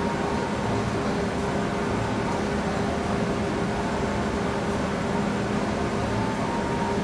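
Steady mechanical hum of kitchen machinery, an even whir with a low, constant tone.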